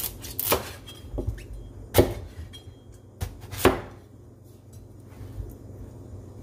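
A large kitchen knife chopping raw squash into chunks on a wooden cutting board: about six knocks of the blade through the flesh onto the board in the first four seconds, with the strokes about two seconds and four seconds in the loudest.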